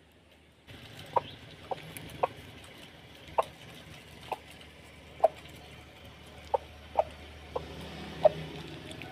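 Chicken clucking: about a dozen short, single clucks at an uneven pace of roughly one a second, over a steady background hiss that comes in just under a second in.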